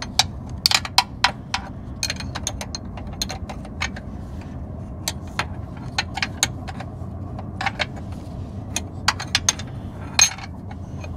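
A hand wrench working a power-steering line fitting on a rack and pinion, making sharp metal clicks, some single and some in short quick runs, over a steady low hum.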